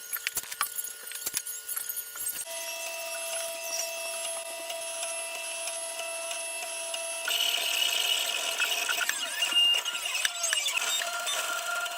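3D printer's stepper motors whining in several steady tones as the print head moves, with a few ticks in the first two seconds. The tones jump to a new set about two seconds in and again about seven seconds in, and slide up and down in pitch near the end.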